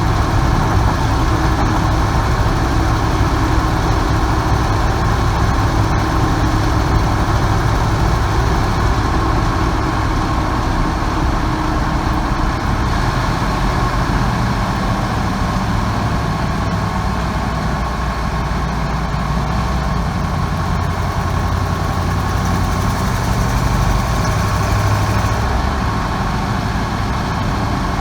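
1998 Ford 5.4-litre two-valve V8 in a van running steadily, carrying the noise that the owner traced to a cracked exhaust manifold between cylinders 6 and 7, a noise that shows on startup and fades once the engine has warmed up.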